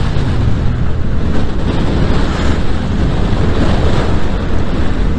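Wind rushing over a helmet-mounted camera microphone on a moving motorcycle, a steady loud buffeting. The Yamaha MT-07's parallel-twin engine runs low underneath.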